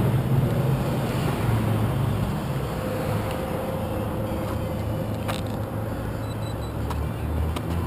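Tricopter's electric motors and propellers running on the ground: a steady whir with the rush of prop wash over the onboard camera's microphone, slowly getting quieter, with a couple of light clicks in the second half.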